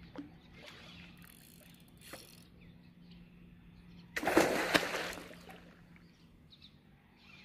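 A hooked fish splashing at the water surface: one loud splash lasting about a second, about four seconds in, over a faint steady low hum.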